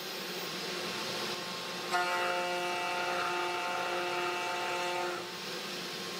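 Desktop CNC router's spindle running with a steady hum while it mills an acrylic plastic rod with a 2.5 mm two-flute end mill. From about two seconds in until about five seconds in, a pitched whine with several tones joins it as the cutter makes a pass through the acrylic.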